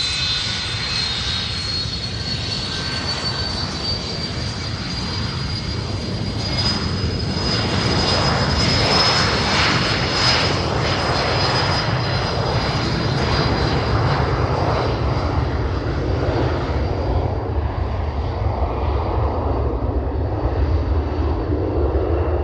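Gulfstream 100 business jet taking off: a high turbine whine that creeps slightly up in pitch over a jet roar. The roar builds to its loudest about a third of the way in and holds, while the whine fades in the second half.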